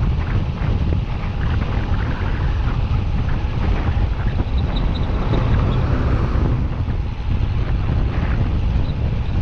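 Steady wind buffeting the microphone of a bicycle rider going downhill, a loud low rumble of rushing air.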